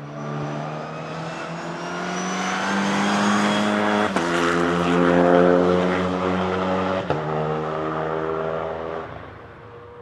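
Renault Clio 5 RS Line Cup race car, a 1.3-litre turbocharged four-cylinder, passing at full throttle. The engine climbs steadily in pitch and drops sharply twice, about four seconds in and again about three seconds later, as it shifts up. It is loudest as it goes by, then fades away down the straight near the end.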